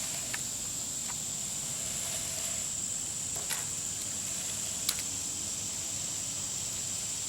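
A steady, high-pitched insect drone over a quiet outdoor background, with a few faint sharp clicks, the clearest about three and a half and five seconds in.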